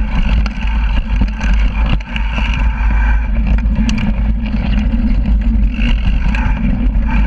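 Mountain bike rolling fast down a dirt trail, heard from a rear-facing GoPro: heavy wind buffeting on the microphone over a steady rumble of the knobby rear tyre on dirt, with frequent small clicks and rattles from the bike.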